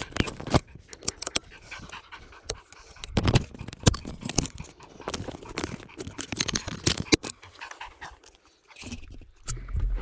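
Weimaraner panting hard after running in harness beside the bike, with clicks and knocks from a hand handling the handlebar camera mount.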